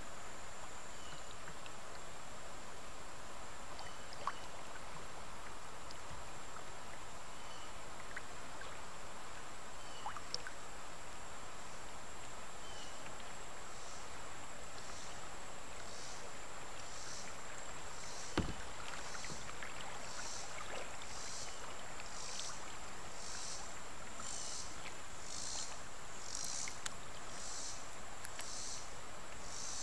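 River water rippling and washing around a Wilderness Systems Tarpon 100 sit-on-top kayak moving down a shallow riffle, with a few light clicks and one sharper knock about two-thirds through. Over it runs a thin steady high insect whine, and from about halfway a high pulsing about once a second that grows louder toward the end.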